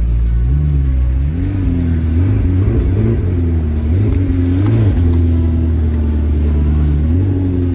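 Sports car engine running at low revs while creeping along slowly, its pitch rising and falling with light touches of throttle.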